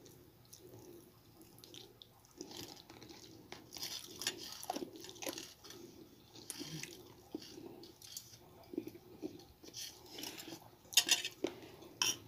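Close-up eating sounds: wet chewing, lip-smacking and sucking on a chicken bone and fingers, with a few sharper clicks near the end.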